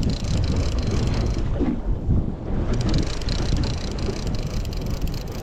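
Wind buffeting the microphone on a small fishing boat at sea, with a run of light, rapid ticks from about three seconds in.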